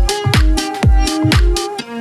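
Electronic house-style dance music with a steady kick drum on every beat, about two beats a second, under held synth chords; the kick drops out near the end.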